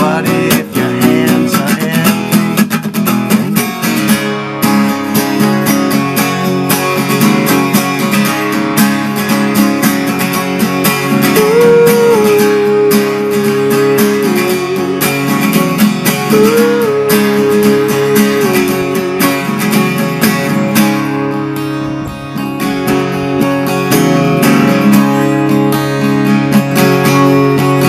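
Acoustic guitar strummed steadily, a wordless instrumental stretch of a song in a quick, even rhythm.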